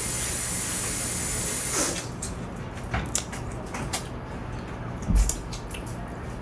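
Crab shell pieces clicking and cracking as curried crab is picked apart and eaten by hand: a few scattered sharp clicks, with a low thump about five seconds in. A steady hiss fills the first two seconds and cuts off suddenly.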